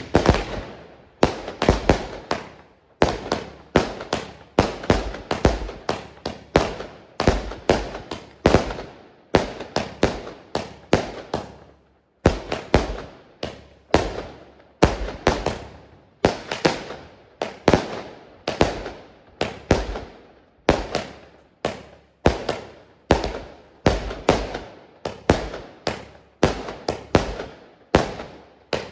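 Rubro 'Shaking Shaggy' consumer firework going off in a long unbroken run of shots, about one to two bangs a second. Each bang is a quick cluster of pops that dies away.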